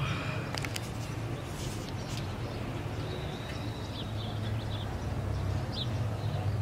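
Beer poured from a glass bottle into a plastic pitcher of tamarind and chamoy, fizzing and foaming up as it hits the acidic mix. A steady low hum sits underneath, with a few faint bird chirps.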